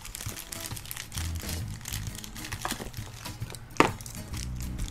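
Plastic packaging crinkling and rustling as small action-camera accessories are handled, with one sharp click a little under four seconds in.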